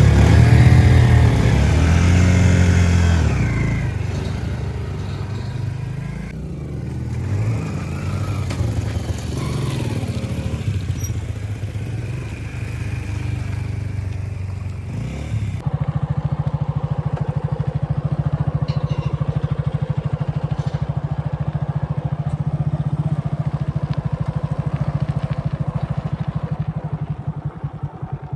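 Diesel engine of heavy machinery working, its pitch rising and falling as it is revved for about fifteen seconds; then the sound changes abruptly to a steady, evenly pulsing engine note.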